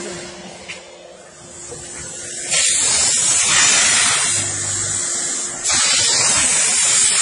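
Steam car wash machine jetting steam onto a car floor mat with a loud hiss. The hiss starts abruptly about two and a half seconds in, eases for a moment, then comes back strongly near six seconds. A low steady machine hum sits under the quieter opening seconds.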